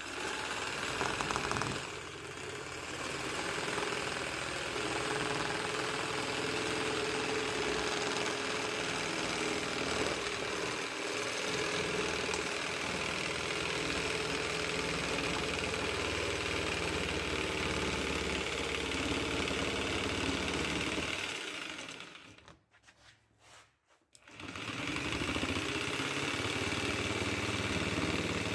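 Angle grinder running at turned-down speed, cutting into a car's front bumper. It stops about three quarters of the way through and starts cutting again a couple of seconds later.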